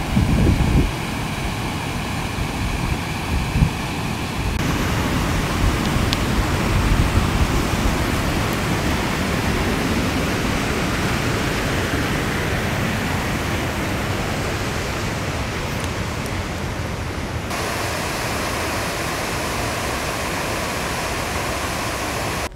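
Whitewater of a mountain creek rushing and cascading over granite, a loud steady hiss of falling water. The texture shifts abruptly twice, and there are a few low thumps near the start.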